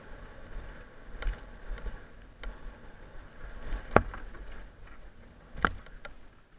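Mountain bike rolling down a dry, rocky dirt trail: a rattling clatter from the bike and tyres over a low rumble, with two sharp knocks as the wheels hit bumps, the loudest about four seconds in where it crosses a wooden plank ramp and another about a second and a half later.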